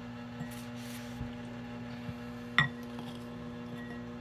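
Kitchenware clinking once, sharp and short with a brief ring, about two and a half seconds in, after a few faint knocks, over a steady electrical hum.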